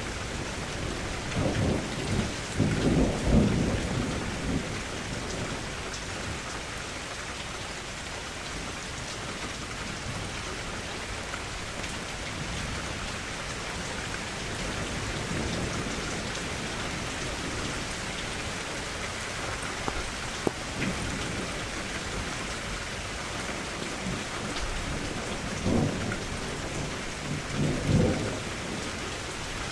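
Steady rain falling on a surface, with two spells of low rumbling, one near the start and one near the end.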